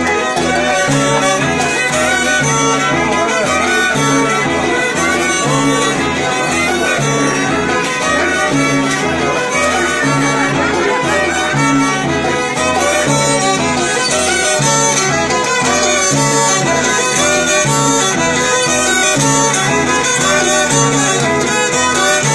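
Mayo (Yoreme) pascola son played on two violins and a harp: the violins carry the melody over a steady pulse of low plucked harp notes.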